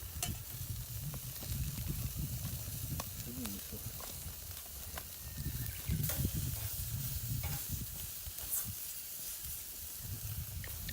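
Meat sizzling over charcoal on a small camp grill, with scattered light clicks over a steady low rumble.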